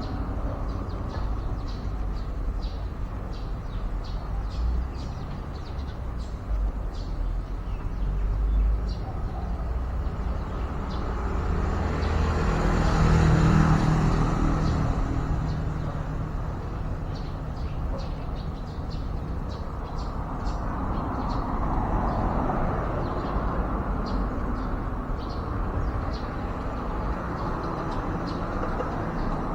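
Road traffic running steadily, with one vehicle passing and swelling to its loudest about halfway through. Short, high bird chirps are scattered throughout.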